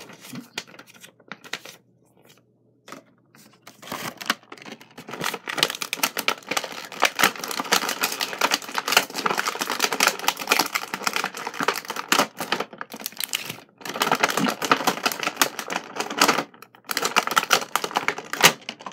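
Thin clear plastic packaging crinkling and crackling as it is handled and pulled open, dense and continuous with a few short pauses. It comes after lighter rustling of a paper insert in the first few seconds.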